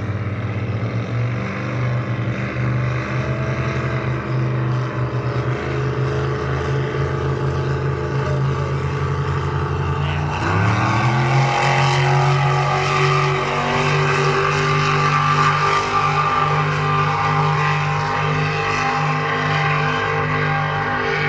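Racing boat engines running flat out, a steady, many-toned engine drone. About ten seconds in the engine note sweeps sharply up and holds higher and louder.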